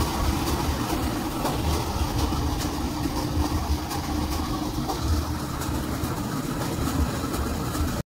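Large industrial washing machine running on its rinse, the drum turning with a steady mechanical rumble, a faint hum and light, fairly regular clicking.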